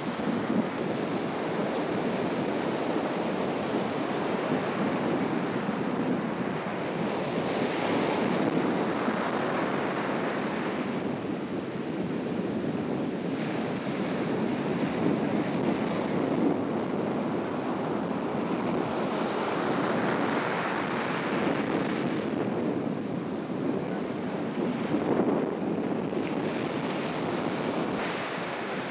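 Ocean surf breaking and washing up a sandy beach in swells, louder about eight seconds in and again about twenty seconds in, with wind buffeting the microphone.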